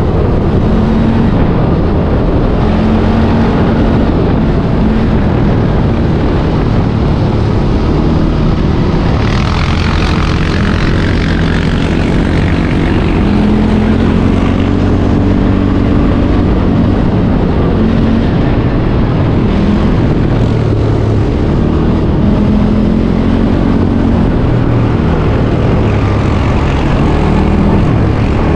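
CFMoto quad's engine running as the machine is ridden, its pitch rising and falling with speed. About ten seconds in, a brighter rush of noise swells for a few seconds over the engine.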